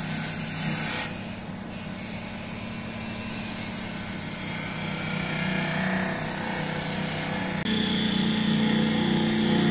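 Wood lathe running with a steady motor hum while a small pointed blade scrapes thin grooves into the spinning wooden spindle. About two-thirds of the way through it gets a little louder and a high steady whine joins the hum.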